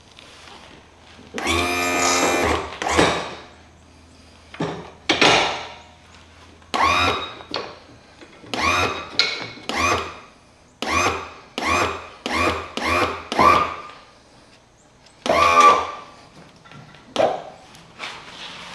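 A power tool, most likely a cordless drill or driver, run in many short trigger pulls. Each burst spins up quickly and holds for about half a second. There is one longer run near the start and a quick series of pulls in the middle.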